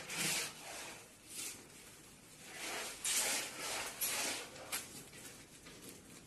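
Irregular scraping and rubbing from hand work on laminated wooden cabinet panels, a string of short strokes that comes and goes.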